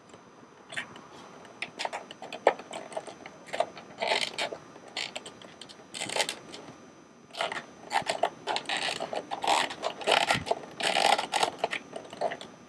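Hands working a leather upholstery cover's edge onto a hard plastic console frame: irregular scraping and rustling of the material against the plastic, with short clicks and taps.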